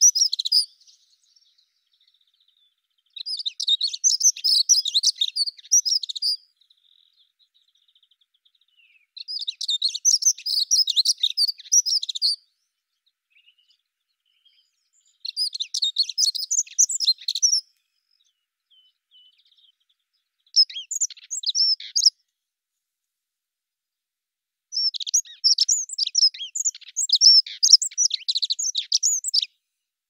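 Dunnock (Prunella modularis) singing: short, fast, high-pitched warbling phrases, each about two to four seconds long, repeated with pauses of a few seconds between them. Five full phrases follow the tail of a phrase that ends just after the start.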